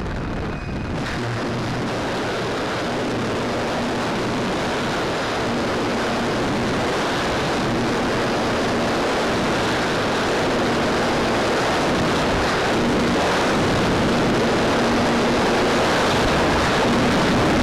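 Heavy wind noise buffeting the microphone, a steady rushing that slowly grows louder, with a faint hum beneath that comes and goes.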